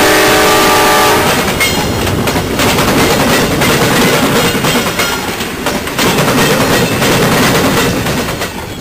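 VIA Rail LRC passenger coaches passing close at speed: a loud rush of wheels and air with sharp clicks as the wheels cross rail joints. A train horn chord sounds at the start and stops about a second in, and the noise fades near the end as the last coach draws away.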